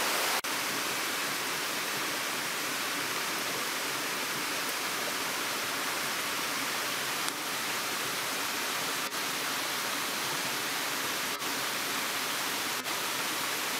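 Water of a small waterfall cascading over rocks: a steady rushing hiss, briefly dipping a few times.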